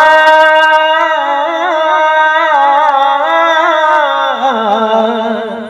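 A single voice holding a long, wordless sung note in a devotional Krishna song, wavering in ornamented turns and fading out near the end.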